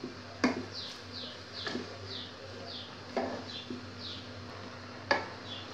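Wooden stick knocking against an aluminium pot while neem leaves are pushed down into hot water, four sharp knocks a second or so apart. A small bird chirps repeatedly in the background, short high falling notes about twice a second.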